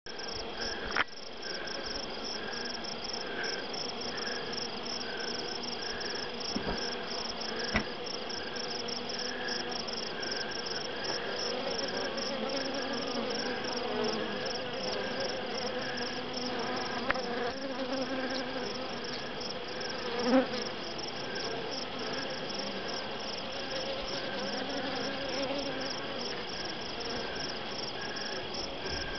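Honey bees buzzing at an open hive, a low hum, over a rapid high-pitched pulsing chirp of insects in the background. A few sharp knocks sound along the way.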